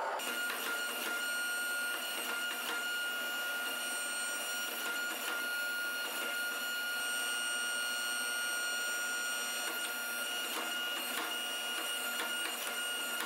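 Hydraulic forging press running with a steady high whine from its pump, while its dies squeeze a red-hot bloom-steel bar, with scattered light clicks.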